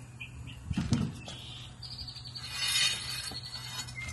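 Small bird chirping in short repeated calls, then a higher, rough chattering call from about two seconds in. A single knock sounds about a second in.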